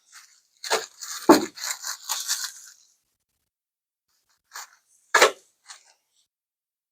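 Metal hand tools knocking and clattering: a sharp knock about a second in with a rattling clatter after it, then two more short knocks a little after the middle.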